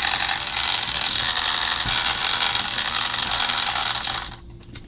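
Battery-powered Trackmaster Percy toy engine's electric motor and gearbox running with a steady, loud grinding whir that cuts off about four seconds in. A loose part keeps the wheel from engaging, and a motor gear with a damaged tooth or dirt in the gears could be behind the noise.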